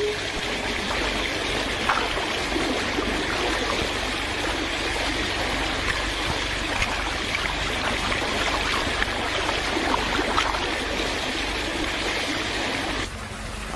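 A steady rushing hiss, like running water, with faint scattered clicks; it drops away abruptly about a second before the end.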